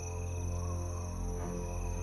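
Background music: a low, steady drone under sustained held tones.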